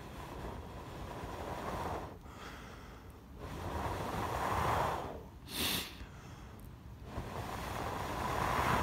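A person blowing on a glowing friction-fire coal to feed it air: three long, steady breaths of blowing, with a short sharp breath in between the second and third.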